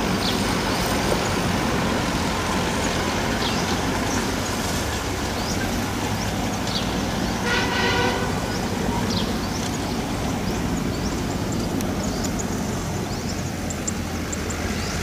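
Kubota tractor's diesel engine running steadily while it pulls a round straw baler across the field. A short horn-like toot sounds about halfway through.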